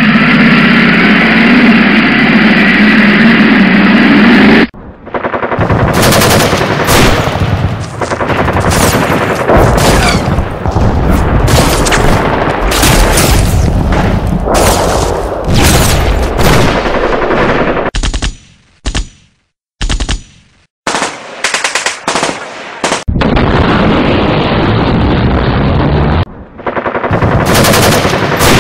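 Sound-effect gunfire: rapid machine-gun bursts and shots, broken by a couple of short pauses. It is preceded by an engine running that cuts off suddenly about five seconds in.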